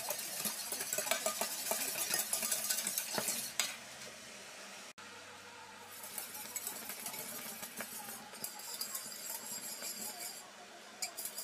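A metal spoon stirs a cream mixture in a stainless steel pot, scraping and clinking against the pot's base and sides. It goes quieter after about three and a half seconds.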